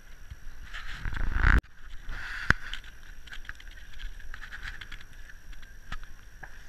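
Wind buffeting a camera microphone, building to a loud rumble that cuts off abruptly about a second and a half in. It is followed by steady outdoor noise with scattered light knocks and rustles as the wearer walks through grass.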